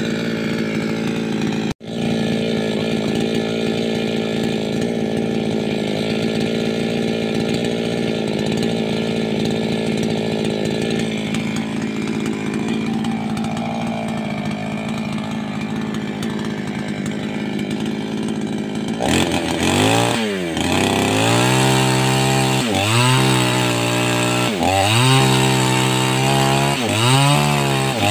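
588X gasoline chainsaw running at a steady high speed, cutting out for an instant about two seconds in. From about two-thirds of the way through, the engine speed drops and climbs back again roughly every two seconds.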